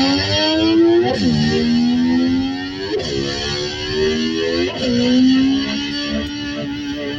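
Distorted electric slide guitar imitating a motorcycle revving through its gears: a held note creeps up in pitch, then flicks sharply up and back down about every two seconds, three times, and settles on a steady note near the end.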